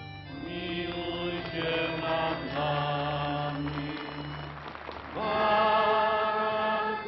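Slow chant-like music of long held vocal notes in chords; a louder held chord starts about five seconds in.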